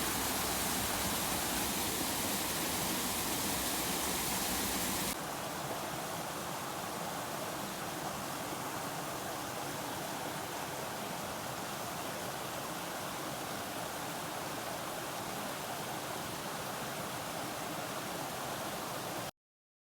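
Steady rushing of small waterfalls, dropping to a softer, less hissy rush about five seconds in; it cuts off suddenly near the end.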